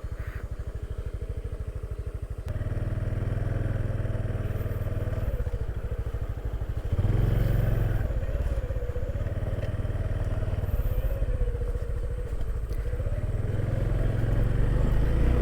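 Honda Super Cub's single-cylinder four-stroke engine running while riding, a steady low pulse that gets louder about two and a half seconds in and again about seven seconds in.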